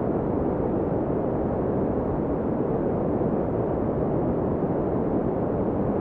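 Sea surf: a steady, muffled wash of waves, deep and rumbling.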